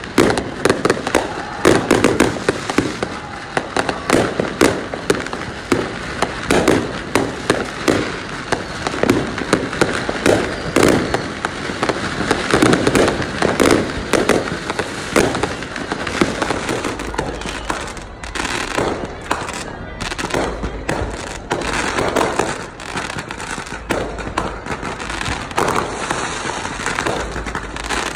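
Fireworks bursting overhead one after another: a dense run of bangs and crackles that thins out in the second half.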